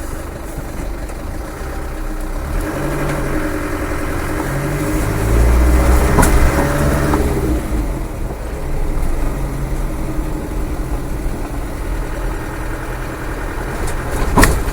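Land Rover Defender's rebuilt 300Tdi four-cylinder turbodiesel running on the road, heard from inside the cab, which has no soundproofing. The engine gets louder for a couple of seconds around the middle, then settles steady, with a sharp knock near the end.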